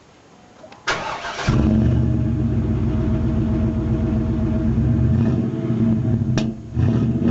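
Pickup truck engine being started: a short burst of cranking just under a second in, then it catches and runs steadily. Near the end there is a click and a brief drop in the engine sound.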